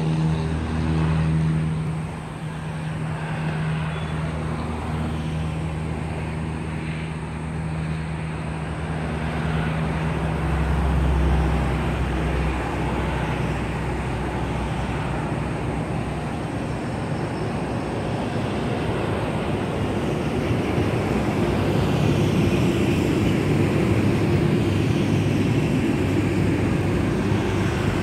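Toll-road traffic: cars and vans driving past at speed, a continuous rush of tyres and engines that grows louder over the second half. A low steady hum runs under the first half.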